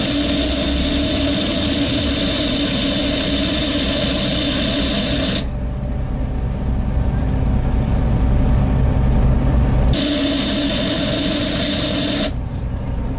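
Very loud suction noise inside a Volvo B7TL double-decker bus: a hissing whoosh with steady whistling tones over the low engine rumble. It cuts off about five seconds in and comes back about ten seconds in for a couple of seconds.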